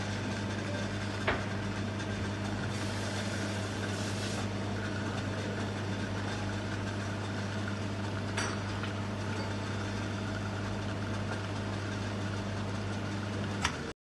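Nuova Simonelli Appia espresso machine's pump humming steadily while an espresso shot extracts, with a couple of light clicks. The hum cuts off abruptly with a click near the end.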